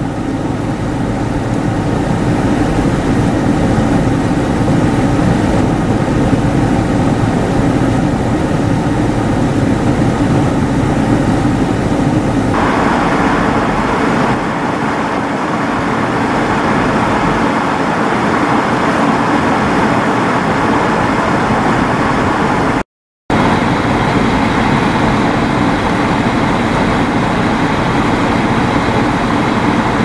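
Blizzard wind blowing hard and steadily, with a low steady hum beneath it. The sound cuts out completely for a moment about three-quarters of the way through.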